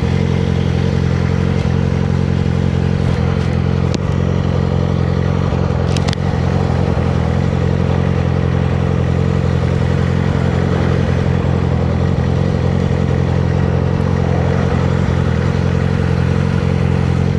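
Yamaha R6 motorcycle's inline-four engine running steadily at an unchanging pitch, with a broad rushing noise over it. Two short sharp clicks come about four and six seconds in.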